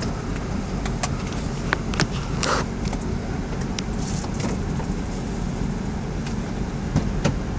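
Audi A3 1.8 FSI engine running steadily, with scattered sharp clicks over it. The engine still has a misfire in cylinders 1 and 2 after new ignition coils and spark plugs, which the mechanic takes to mean the cylinder head must come off.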